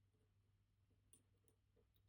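Near silence, with two faint clicks from a lock pick working the levers of a MIWA PR lever lock, about a second and a second and a half in.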